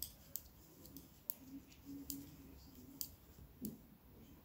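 Knitting needles clicking together in light, irregular clicks, a few each second, as stitches are knitted off one needle onto the other.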